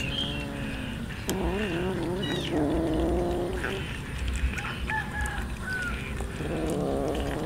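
Kittens making low, wavering vocal sounds while eating raw fish, several calls of about a second each, with short bird chirps in the background.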